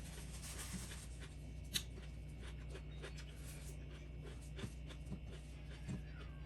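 Faint scratchy rustling and scattered small clicks over a steady low hum, with one sharper click a little under two seconds in.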